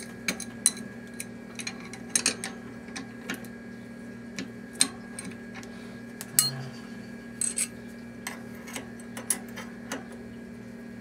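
Scattered small metallic clicks and clinks of an adjustable wrench and thin cone wrenches handled against a bicycle front hub's axle locknut, over a steady low hum.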